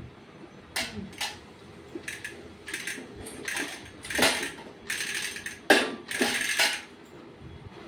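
Irregular clinks and knocks of small stainless steel bowls and plastic toys being handled on a tiled floor, loudest about four and almost six seconds in.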